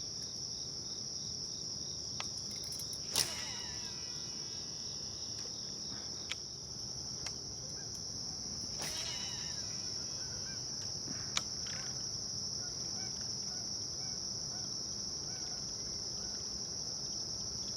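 Steady, high-pitched chorus of insects droning without a break, with a couple of brief sharp sounds about 3 and 9 seconds in.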